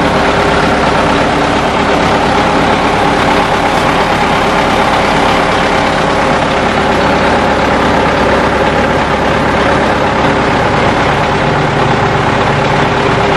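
Flatbed tow truck's engine idling steadily, a constant hum with no change in pace.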